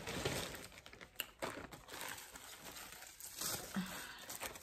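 Thin clear plastic polybag crinkling and rustling as a garment is pulled out of it by hand, with a few sharp crackles.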